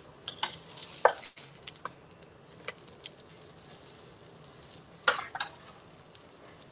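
A burger patty sizzling quietly in a nonstick frying pan while spatulas scrape and tap against the pan as it is pressed and turned. The sharpest tap comes about a second in, and there is another cluster of scrapes near the end.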